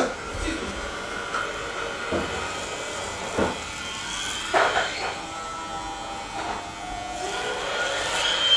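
Electric hair clippers buzzing steadily as they cut a child's hair, with a few brief louder noises around the middle.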